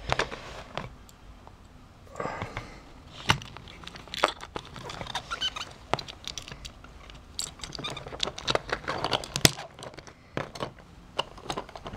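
Lego plastic parts clicking, scraping and rattling as fingers handle a small Lego baggage tractor and push a piece into it. There are many small irregular clicks, and the loudest is a sharp click about nine and a half seconds in.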